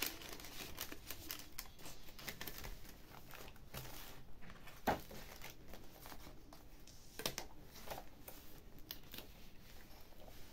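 Paper pages, vellum and tags of a handmade junk journal rustling and crinkling as they are handled and turned, with one sharp tap about five seconds in.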